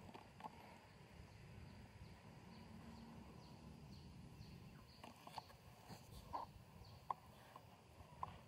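Near silence: faint outdoor ambience with a few faint high chirps and soft clicks, and one sharp click about seven seconds in.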